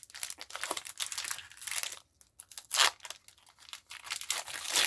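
Foil wrapper of a Pokémon trading card booster pack crinkling as it is torn open: irregular crackling, a brief pause about two seconds in, then a louder crackle just before three seconds.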